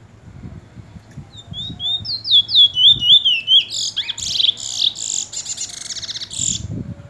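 Caged bullfinch (a Caribbean seed finch) singing. About a second in it starts with a run of quick whistled notes slurring up and down, then goes into a fast buzzy trill that breaks off shortly before the end.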